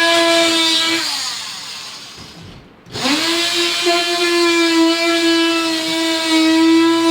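Power tool motor running with a steady high whine. It is let off about a second in and winds down to a stop, then is started again about three seconds in, spinning straight back up to full speed.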